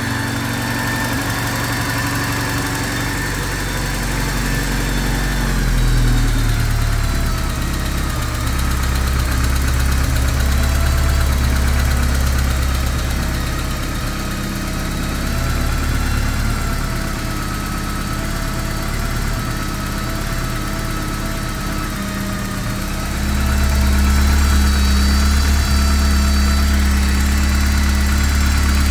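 Porsche 944's water-cooled inline-four engine idling, just after its cam housing, timing and intake manifold were reassembled. The idle shifts about six seconds in, and its low hum grows louder about five seconds before the end.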